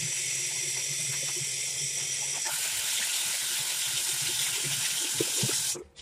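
Tap water running steadily into a bathroom sink, splashing over a plastic PSU fan rotor being washed under the stream. There are a few light knocks shortly before the water sound stops abruptly near the end.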